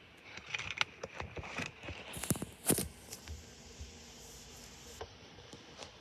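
A run of light scratching, scraping and clicking sounds in the first three seconds, the loudest about two and a half seconds in, then only faint background.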